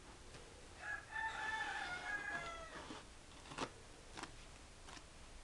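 A rooster crowing once, a pitched call of about two seconds that drops slightly in pitch at the end, followed by a few soft clicks as the gloved hand presses wet paste onto the wire mesh.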